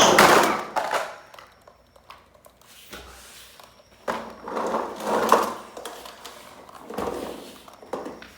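Plastic toys being handled and pushed about, with scraping and sliding noises in a few patches, and a brief burst of a child's voice at the start.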